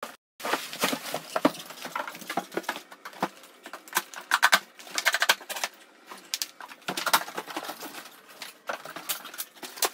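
Plastic bubble wrap and a large cardboard box being handled. There is irregular rustling and crinkling with many quick clicks and snaps as the wrapping comes off and the plastic packing straps are cut.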